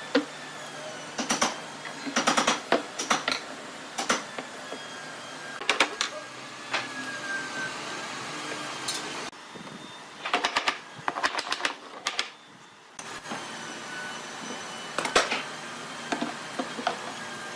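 Groups of quick, clicking taps and knocks, a cluster every second or two, over a steady background noise.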